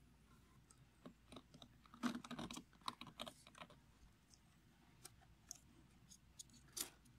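Faint, scattered plastic clicks and rattles of a black 40-pin ECU wiring connector being unlatched and handled.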